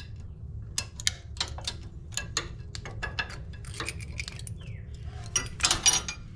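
Irregular metallic clicks and clinks of a wrench working a nut on a quarter-inch bolt in short turns, slowly drawing the pressed-in aluminum breather fitting out of a Jeep axle housing, with a steady low hum underneath. The clicks bunch together near the end.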